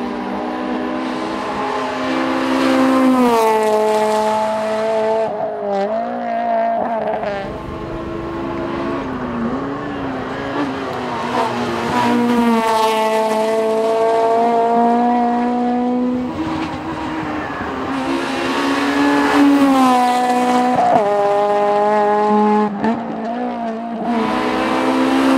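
Honda Civic race car's B16 four-cylinder engine revving hard, its pitch climbing and then dropping again and again with gear changes and lifts for corners.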